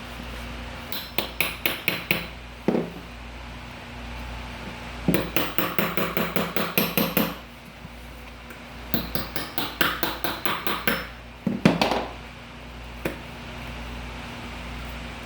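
Hammer striking in rapid runs of sharp blows, about five a second, three runs of a second or two each, followed by a couple of harder single hits.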